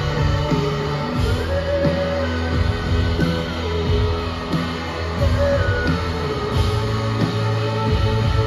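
Live rock band playing: a woman singing into a microphone over electric guitars, bass and drums.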